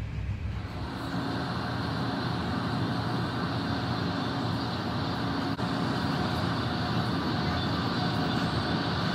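Passenger train running at speed, heard from inside the carriage: a steady rumble of wheels on track with a faint steady whine.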